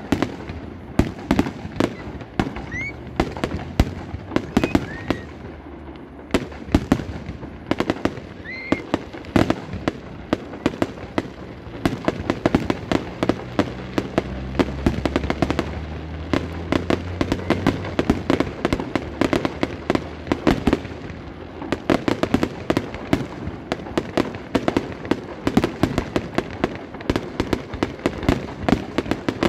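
Aerial fireworks display: shells bursting and crackling in a dense, unbroken run, several bangs each second.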